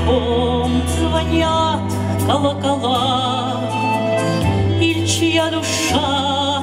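Music: a slow song with a steady low bass and a lead melody with heavy vibrato.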